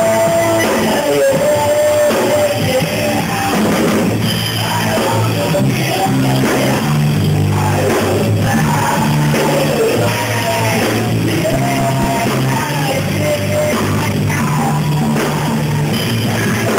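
A rock song with drum kit, bass and a singing voice.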